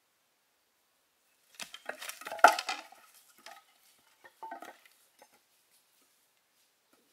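Hard objects knocking and clinking together in a quick clatter, with the loudest knock about two and a half seconds in, then a second, shorter clatter a couple of seconds later.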